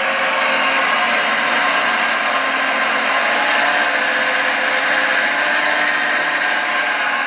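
Premacon 1:14 scale Liebherr R 956 radio-controlled hydraulic excavator running, a loud, steady mechanical whir.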